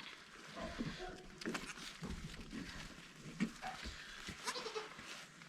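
Goats bleating faintly in a few short, soft calls: a doe in labour and her newborn kids.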